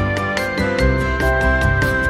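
Background music with a steady beat, a bass line and held melodic notes.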